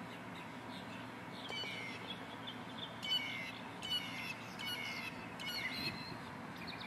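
A bird calling over and over, a run of short high chirps starting about a second and a half in and stopping about six seconds in.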